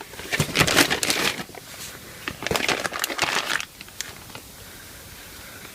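Plastic packaging crinkling in two bursts of about a second and a half each, as a new car door lock mechanism is handled in its wrapping.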